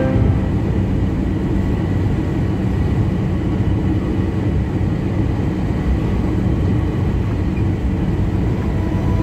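Steady road and engine rumble of a car driving at highway speed, heard from inside the cabin.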